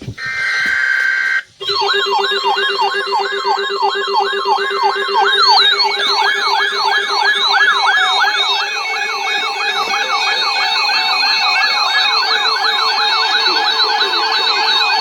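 Broadcast emergency alert attention signal: a brief buzzy data burst, then a loud, rapid, siren-like warbling tone sweeping up and down about four times a second, with several copies overlapping out of step.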